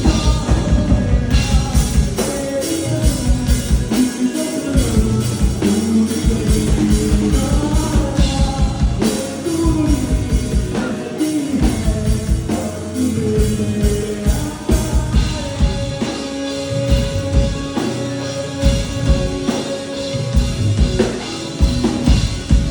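Rock band playing live, with a singer over drum kit and guitar and a steady beat; a sung note is held for several seconds in the second half.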